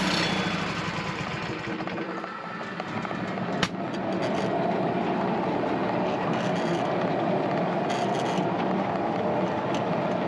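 Portable sawmill machinery running with a rough, rattling mechanical noise. The engine's steady hum drops away in the first second or two, and there is a single sharp clack about three and a half seconds in.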